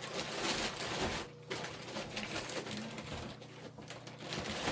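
Plastic bags rustling and crinkling as bottled water is packed into them, with light knocks from the handling.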